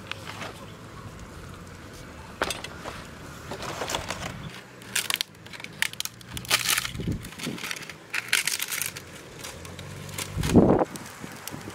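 Irregular crisp crackling and crunching of charred, stick-roasted waterhen being pulled apart by hand, with a dull thump near the end, the loudest sound.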